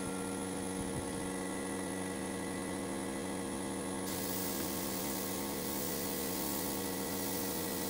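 Compressed air hissing steadily from a gravity-feed spray gun as it sprays, starting about four seconds in, over a steady machine hum.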